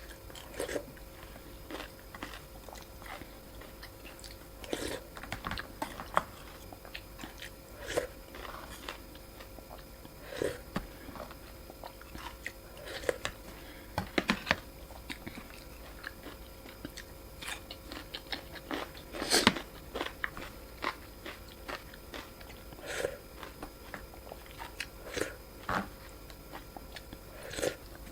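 Close-up eating sounds of a bowl of Thai boat noodles: chewing, with irregular smacks and clicks about every second, the loudest about two-thirds of the way in.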